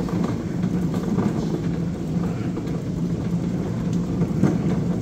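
Metal shopping cart rolling over a smooth concrete store floor: a steady rumble from its wheels, with a constant low hum.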